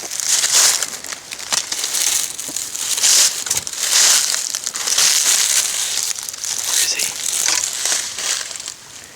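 Footsteps crunching and rustling through dry leaves and brush, in an uneven run of crackling steps.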